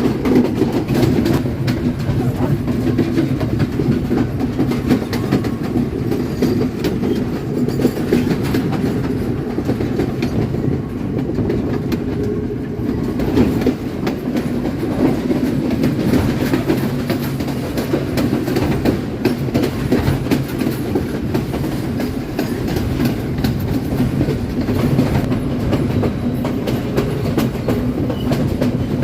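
Colombo–Badulla Night Mail passenger train running, a steady rumble with the wheels clattering over rail joints throughout.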